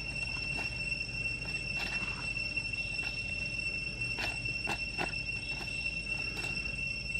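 Dry fallen leaves crackling in short, irregular clicks as a monkey steps and picks through leaf litter on grass. Underneath runs a steady high-pitched whine and a low rumble.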